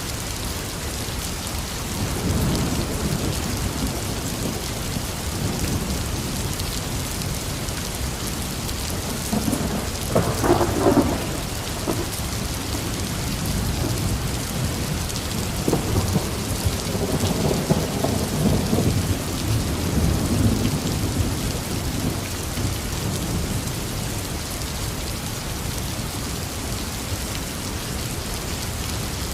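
Heavy rain falling steadily, with rolling thunder: a low rumble building a couple of seconds in, a sharper crack about ten seconds in, and a longer rumble rolling on from about fifteen seconds to past twenty.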